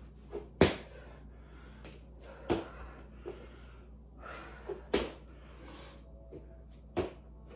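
Thuds of feet and hands landing on a floor during bodyweight squat thrusts (jumping the feet back and forward from a squat). A heavy landing comes about every two seconds, often with a lighter knock just before it.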